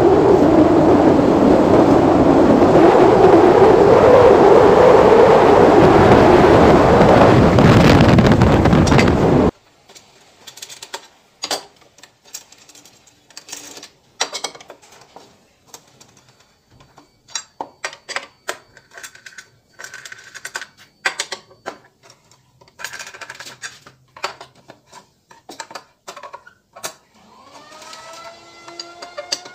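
Wind on the microphone and a Honda automatic scooter running at road speed; the noise cuts off abruptly about nine seconds in. After that come scattered metallic clicks and knocks, from a hand tool working the bolts on the scooter's CVT cover. Near the end, a wavering, siren-like tone starts in the background.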